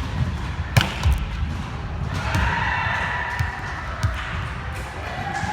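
Volleyball being hit and striking the court during play in a gym. There is a sharp smack about a second in and a few softer thuds later, over a background of people's voices that swells briefly in the middle.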